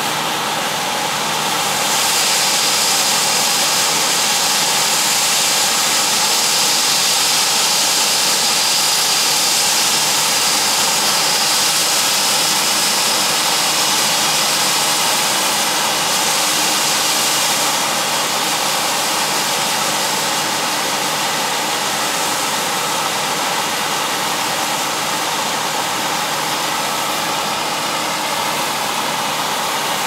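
A John Deere 9410R tractor's engine runs steadily while the Brent 1082 grain cart's auger unloads shelled corn into a semi trailer, with a rushing hiss. The hiss swells about two seconds in and eases back a little past the middle.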